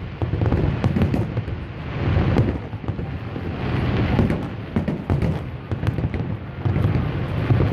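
Fireworks display: a continuous rumble of aerial shell bursts with many sharp crackles and pops layered over it.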